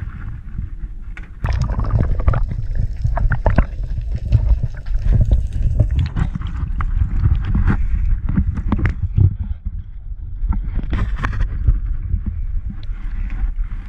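Water gurgling and sloshing around a camera dipped underwater, a heavy low rumble with many scattered clicks and knocks, starting abruptly about a second and a half in.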